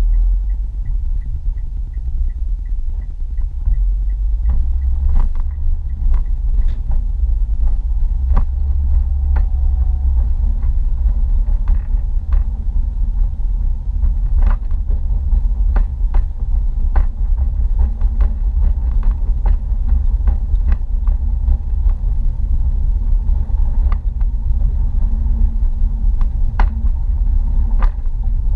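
Steady low rumble of a car's engine and tyres heard from inside the cabin while driving in city traffic, with scattered light clicks and knocks. A faint rapid ticking stops about three seconds in.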